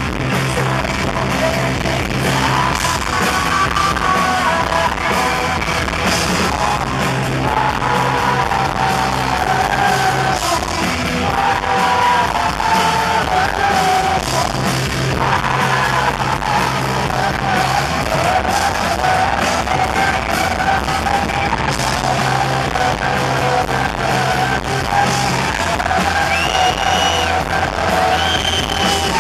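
Live rock band playing through a concert PA: a woman sings the lead over electric guitars, bass and drums, with a steady low bass line under the sung melody.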